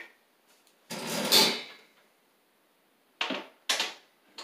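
A scraping metal rattle about a second in, then two sharp knocks about half a second apart near the end: a ClosetMaid metal shelving standard being handled and knocked into place on its wall-mounted hang track.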